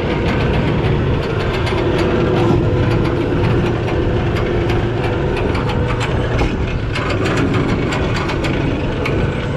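A party boat's engines running steadily, with a rapid mechanical clicking over the hum.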